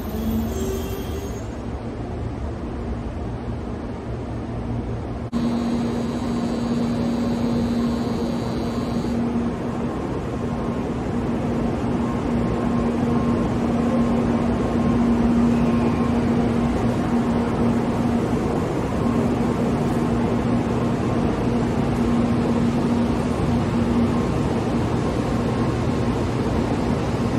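N700 series Shinkansen rolling slowly along the platform as it pulls in: a steady rushing run noise with a low steady hum. The noise gets suddenly louder about five seconds in and then builds slowly.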